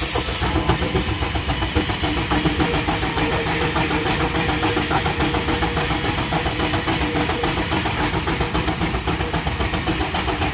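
Steam traction engine running, belted to a circular saw: a fast, even beat with a steady hum over it.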